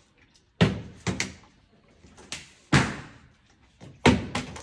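Part-filled plastic water bottle being flipped and landing on a tabletop: a series of sharp thuds, the loudest ones each followed closely by a smaller second knock.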